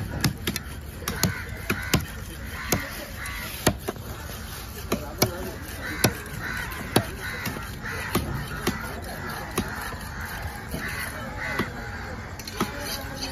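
Heavy fish-cutting knife knocking against a wooden log chopping block as a large fish is cut up: sharp, uneven knocks about once or twice a second. Crows caw repeatedly between the knocks.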